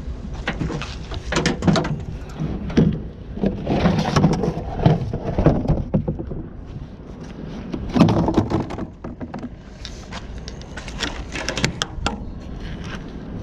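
Irregular knocks, clanks and scrapes of scrap items being handled and moved about, loudest in clusters through the first half and again about eight seconds in, over a steady low rumble.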